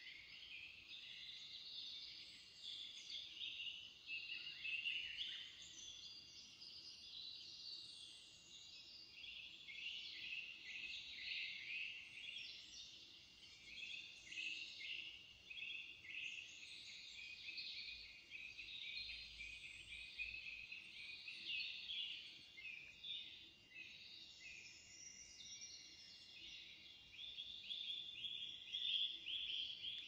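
Several small birds singing at once, a continuous chorus of overlapping high chirps and trills.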